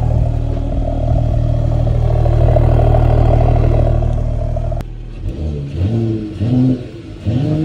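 Mercedes-AMG car engine running steadily with its exhaust note, cut off suddenly about five seconds in. A few rising and falling pitch glides follow.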